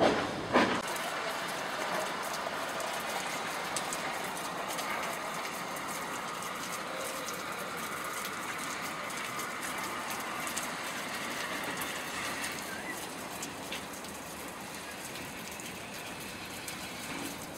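Steady rain falling, an even hiss with a few sharp drop ticks.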